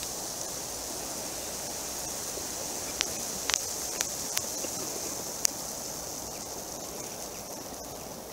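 Steady outdoor hiss and rustle in a pine wood, with a handful of brief sharp ticks clustered in the middle.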